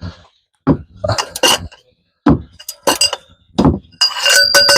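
Steel wrench and jack-handle cheater bar clanking and clinking against each other and the hub, in a series of sharp metallic knocks that ring briefly, while the seized bearing bolts are worked loose.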